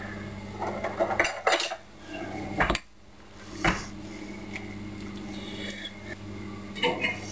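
Wooden spoon stirring food in a glass mixing bowl, with several sharp knocks and clinks of the spoon against the glass and softer scraping in between.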